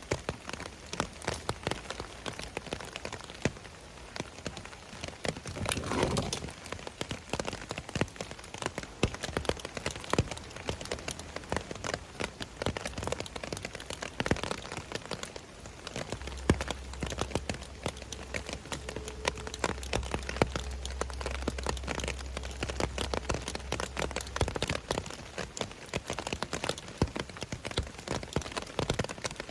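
Rain falling, many separate drops pattering on a nearby surface. A low rumble joins in for several seconds midway.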